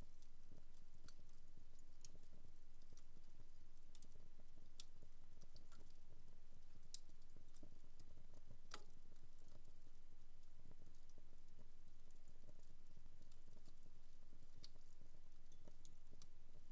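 Fireplace fire crackling: irregular sharp pops and snaps, with two louder snaps near the middle, over a faint steady low hum.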